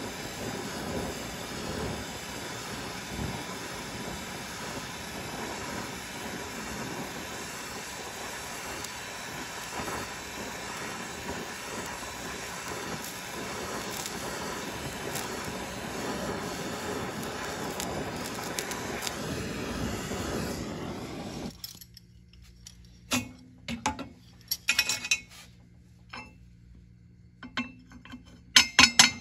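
Gas torch flame hissing steadily while heating a cast aluminum oil pump cover to flatten it, shut off abruptly about three-quarters of the way through. Then a few light metallic clinks and knocks as the steel bar and cover are handled.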